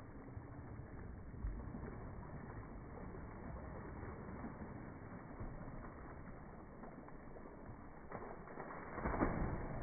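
Water splashing in a swimming pool, slowed down in slow motion so that it is heard as a deep, drawn-out churning rumble. It grows louder near the end as the next splash begins.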